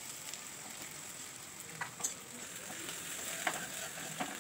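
Sliced onions and chopped ginger sizzling in hot oil in a steel kadhai, with a metal spatula stirring and scraping against the pan, giving a few short clicks.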